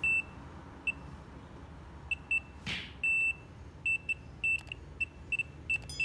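Digital multimeter's continuity beeper sounding in irregular short and longer beeps, one for each press of the newly soldered laptop power button: the switch closes, so the button works.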